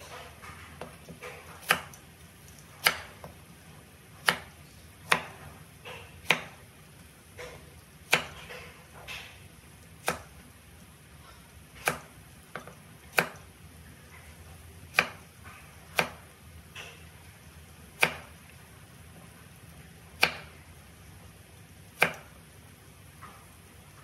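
Cleaver slicing carrot on a wooden cutting board: a sharp knock of the blade hitting the board every second or two, about fourteen times.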